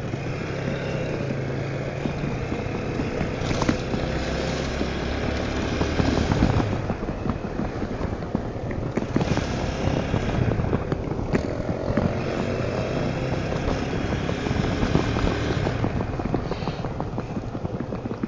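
Honda Tornado 250's single-cylinder four-stroke engine running as the motorcycle is ridden, its pitch rising and falling with the throttle.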